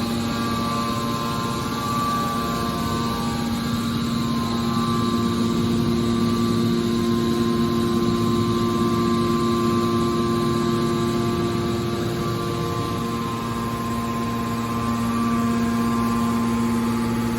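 Hydraulic scrap metal baler running, its power unit giving a steady machine hum with several fixed tones. The hum eases for several seconds midway and strengthens again near the end.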